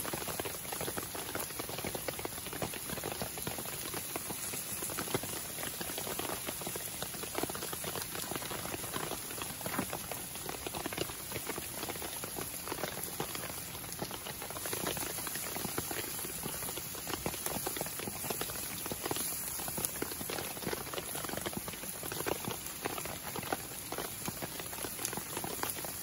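Vegetables frying in butter in a pan over a wood campfire: a steady, dense sizzle, with the fire crackling beneath.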